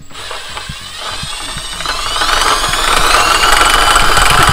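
Power drill spinning a truck engine's water pump by its pulley. The drill speeds up over about two seconds into a steady, loud high whine, used to push the last coolant out of the engine.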